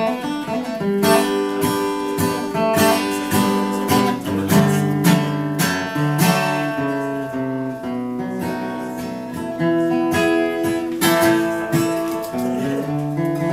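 Solo acoustic guitar playing an instrumental break in waltz time, picked melody notes mixed with strummed chords over ringing bass notes.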